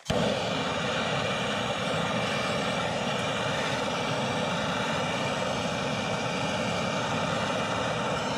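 Handheld MAPP gas torch lit with a click of its trigger igniter, then the flame's steady, even hiss at a constant level.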